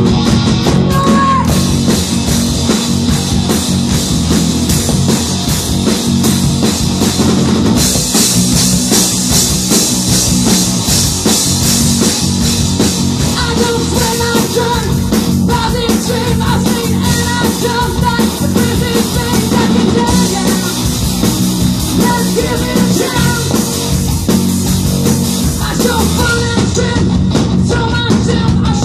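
Live rock band playing loud: electric guitar, bass guitar and drum kit, with a woman singing into a microphone.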